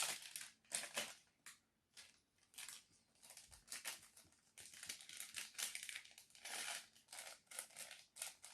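Plastic packaging crinkling and rustling in short, irregular bursts as it is handled and opened.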